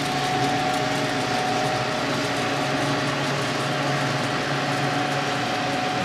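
Running refrigeration training system's compressor and fan: a steady mechanical hum with a constant whine over the rush of moving air.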